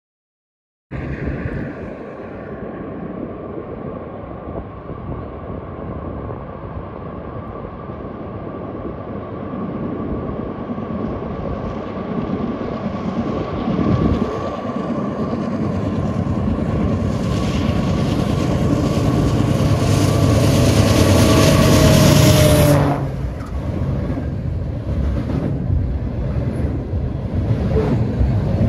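A CSX freight train's diesel locomotives approach, their engine noise building for about twenty seconds to its loudest, then dropping suddenly as the locomotives pass below. The rumble of the rail cars rolling by follows.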